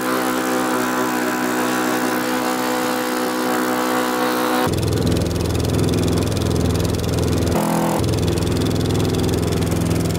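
Engine of a small wooden outrigger boat running steadily under way, over a hiss of wind and splashing water. The engine tone changes abruptly about halfway through and again near the end.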